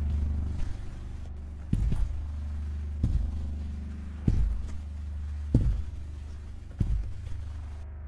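Film soundtrack sound design: a steady low drone with five deep thumps at an even pace, about one every 1.3 seconds.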